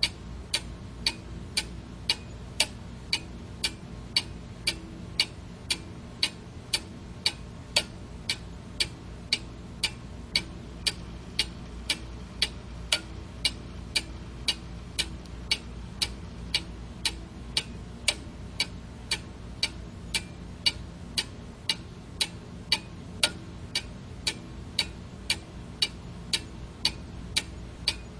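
Quartz alarm clock ticking steadily, about two sharp ticks a second, over a steady low hum.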